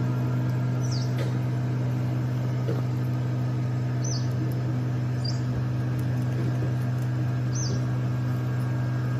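A steady low hum with an even pitch runs throughout. A few short, high, falling bird chirps sound over it.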